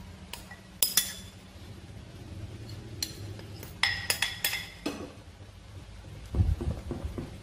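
Metal spoon and glass bowls clinking, with a few sharp ringing chinks about a second in and a cluster of them around four seconds, as flour is scraped from one glass bowl into another. Near the end, soft low knocks of wooden chopsticks stirring flour into batter in the glass bowl.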